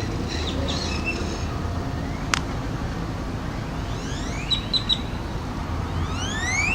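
Steady low machine hum, with several rising whistled bird calls and short chirps over it, and one sharp click about two seconds in.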